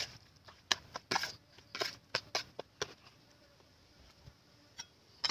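Wet squelching and smacking of a hand kneading raw pork intestines in marinade in a plastic basin: a quick, uneven run of squishes for about three seconds. After that it goes quieter, with a couple of single clicks near the end.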